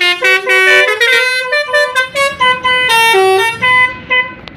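Bus telolet basuri multi-tone horn playing a fast tune of short stepped notes. It stops about four seconds in.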